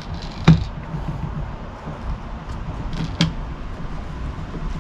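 Dispensing pump on a TotalBoat epoxy jug being pressed down to purge air from it, clacking twice about two and a half seconds apart; the first stroke comes with a brief hiss. A steady low rumble runs underneath.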